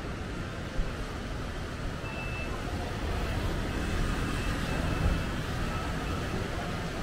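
Steady outdoor road-traffic rumble from vehicles, swelling a little about halfway through, with faint distant voices.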